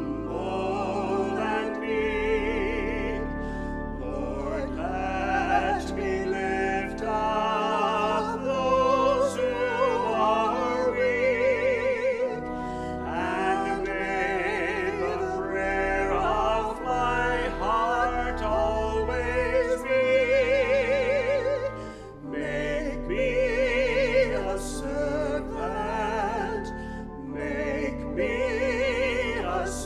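A singer with a wide vibrato sings a slow sacred song over instrumental accompaniment that holds sustained low notes.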